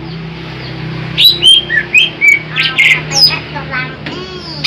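Greater green leafbird (cucak ijo) singing. About a second in it starts a rapid run of loud, sharp whistled chirps and short sliding notes over a steady low hum.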